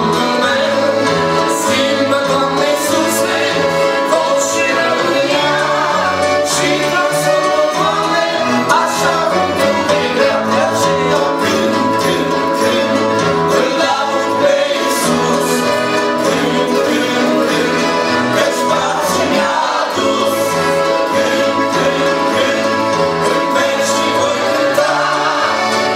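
Live Romanian Christian song: men's voices singing together, backed by two piano accordions and an electronic keyboard, with occasional percussion hits.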